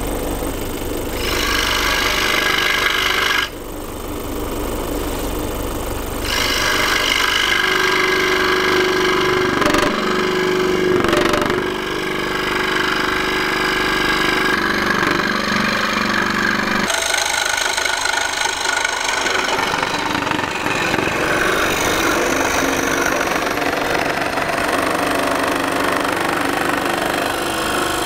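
Scroll saw running, its fine blade going up and down through a walnut board as a cutting-board shape is cut out: a steady mechanical hum that dips briefly about three and a half seconds in and is louder from about six seconds on.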